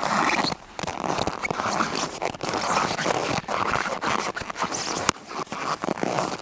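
Footsteps crunching in cold snow, one step after another with short breaks between them.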